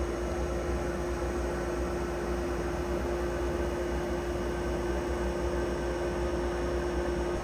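Wood lathe running steadily, its motor giving a constant hum with an even hiss over it.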